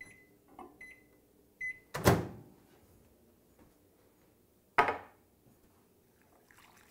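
Panasonic microwave oven's keypad beeping three short times as it is set, followed by two loud sharp knocks.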